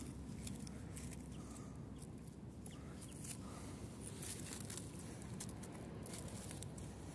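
Faint rustling and small clicks from dry grass and leaf litter being handled around a cluster of oyster mushrooms, over a steady low rumble.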